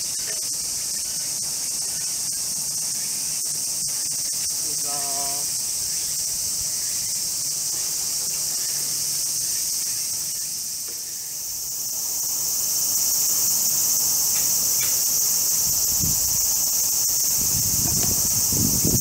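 Steady, shrill chorus of summer cicadas. A short pitched call comes about five seconds in, and some low rumbling near the end.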